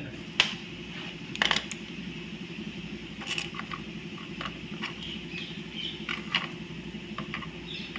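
Sharp clicks and taps of wire ends being fitted to a small 12-volt battery's terminal screws, a handful of them scattered over several seconds, over a steady low hum.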